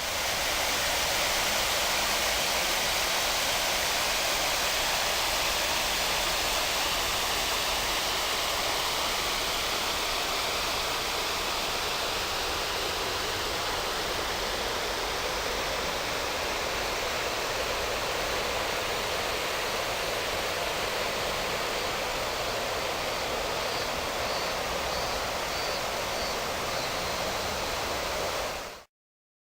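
Steady rushing of river water, an unbroken hiss that cuts off suddenly near the end.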